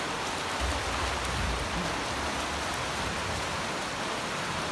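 Splashing and churning water from swimmers stroking through a pool, a steady hiss with no separate splashes standing out.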